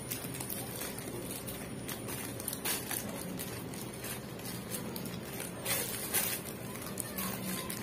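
Cheese being grated on a small metal hand grater over a pizza: short, irregular rasping strokes, with a steady low hum underneath.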